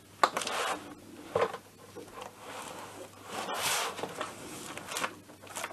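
Rustling and light knocks as a plastic ring-binder manual is slid across a wooden workbench and opened, its pages handled; the longest rustle comes past the middle.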